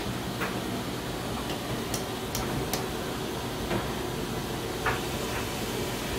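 Steady background hiss with a few faint, irregular light ticks and taps.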